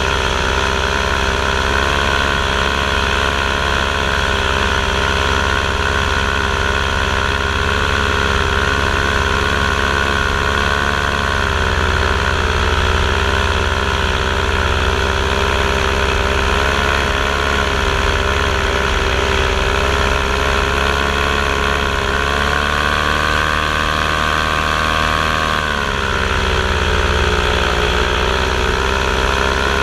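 Camera drone's motors and propellers humming steadily, the pitch dipping about eleven seconds in, climbing from about twenty-two seconds, dropping sharply near twenty-six seconds and rising again near the end.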